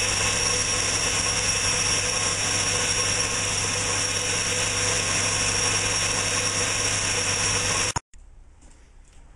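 Early-1950s Hercus metal lathe running steadily, its electric motor and belt drive humming with a high whine, while a boring tool cuts into an aluminium hub blank. The sound cuts off suddenly about eight seconds in, leaving quiet with a few faint ticks.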